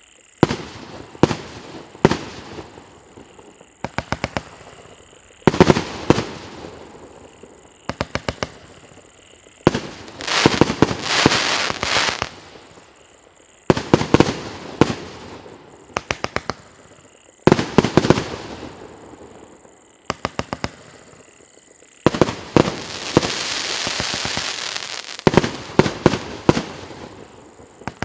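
Piroff 'Legends of the East' firework battery firing: volleys of sharp bangs every couple of seconds, with two longer stretches of crackling and hissing, one near the middle and one toward the end.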